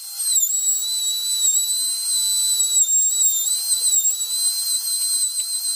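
Compact trim router running with a steady high-pitched whine, its pitch dipping slightly now and then as the bit cuts freehand into the wood.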